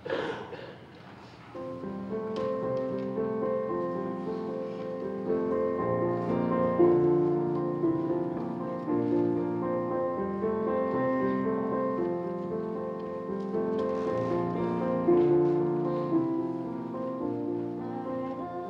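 A keyboard playing the instrumental introduction to a song: slow, evenly paced chords with held notes, starting about a second and a half in. A short noise, such as a cough or rustle, comes at the very start.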